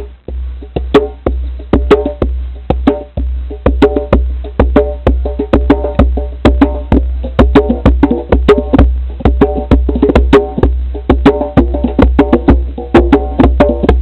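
Percussion music played live: a fast, driving rhythm of sharp, clacking hits several times a second, with short pitched notes between them and a steady low rumble underneath.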